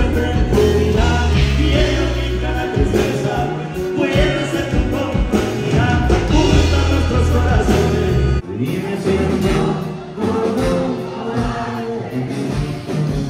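Live band playing through a PA: a male lead singer over acoustic guitar, bass and drums. The heavy bass drops out suddenly about eight seconds in.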